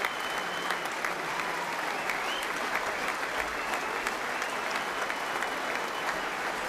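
Sustained applause from a large audience, clapping steadily throughout.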